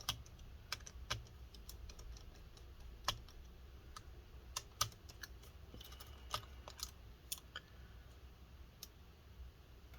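Scattered sharp clicks and ticks of a small precision screwdriver working the tiny screws inside a laptop, coming irregularly about once or twice a second, over a faint low hum.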